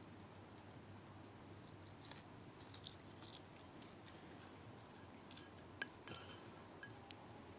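Near silence with a few faint, scattered crackles and clicks from a wood campfire, bunched a couple of seconds in and again near the end.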